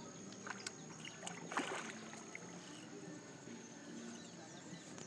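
Faint water sloshing and small splashes from a large hooked fish swirling at the surface, played out after the fight, with a few light clicks in the first couple of seconds.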